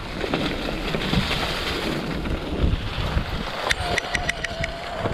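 Mountain bike rolling along a trail covered in dry leaves, with wind noise rumbling on the bike-mounted microphone and tyres rustling through the leaves. Near the end a run of sharp clicks and rattles starts, with a faint steady whine.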